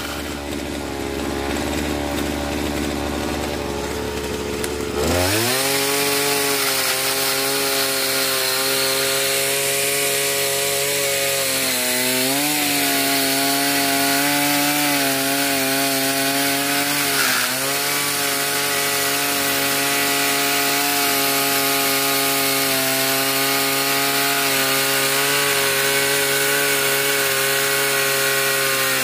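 Petrol chainsaw idling, then throttled up about five seconds in and held at high speed while cutting firewood. Its pitch dips briefly twice.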